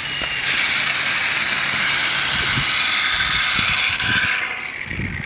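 RC speed-run car's brushless electric motor whining at full throttle as the car rushes past on a speed pass clocked at 125 mph. The high whine builds, holds loud, then fades away near the end.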